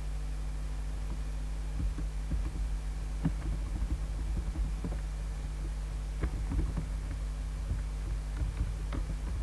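Steady low electrical hum from the recording setup, with faint scattered clicks of a computer mouse and keyboard.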